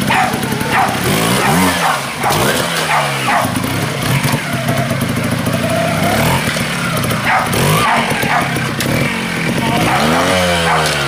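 Trials motorcycle engine blipped and revved in short bursts as the bike is ridden slowly through a rocky stream, with water splashing. Near the end it revs sharply up and back down as it climbs out.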